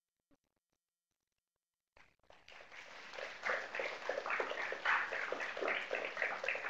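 Audience applauding: many people clapping, starting abruptly about two seconds in and building to a steady patter.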